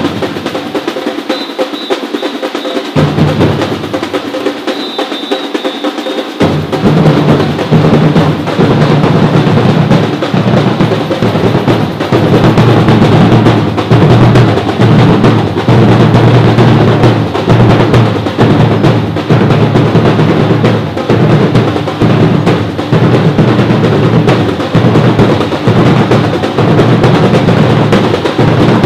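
Batuque percussion group drumming, with snare rolls over bass drums. The drumming is lighter at first, and the full group comes in loud with a strong low beat about six seconds in.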